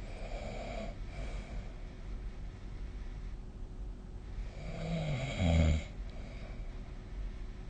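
A sleeping person snoring: a soft, breathy snore at the start, then a louder, low-pitched snore about five seconds in.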